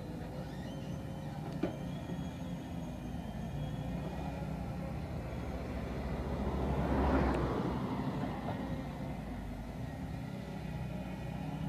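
Engine of a heavy construction vehicle running steadily, swelling louder about seven seconds in and then easing back.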